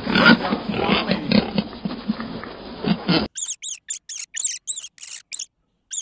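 Piglets grunting and oinking together for about three seconds, then a sudden switch to a rodent's rapid high-pitched squeaks, about four or five a second, that stop shortly before the end.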